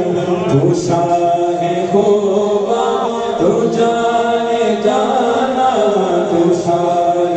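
Men singing a Malayalam song through microphones, in long held notes that glide from one pitch to the next in a chant-like style.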